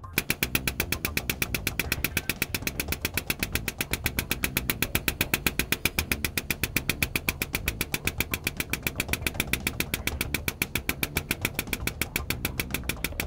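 Kenworth K200 hydraulic cab-tilt pump running, a rapid even pulsing of about seven beats a second, as the cab is raised.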